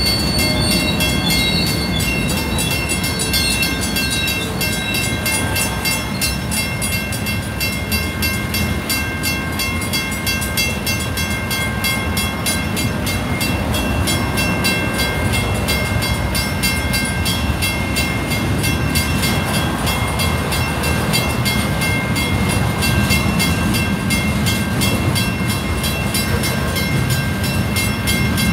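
Freight cars rolling past at a grade crossing: a steady, continuous rumble and clatter of steel wheels on the rails, with a thin high ringing tone held above it throughout.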